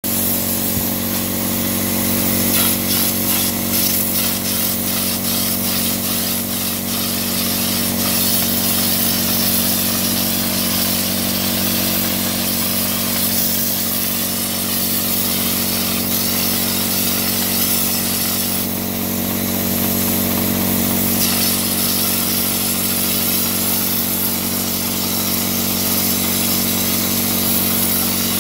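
The motor of a spray rig running steadily with a constant low hum, under the hiss of Chamberguard smoke-chamber coating being sprayed from the gun onto concrete block. A run of rapid ticks sounds in the first few seconds, and the spray hiss drops out briefly about two-thirds of the way through.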